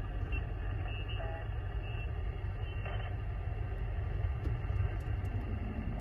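HF radio receiver giving steady static between transmissions, with a deep rumble underneath and a few faint, short whistles from other signals.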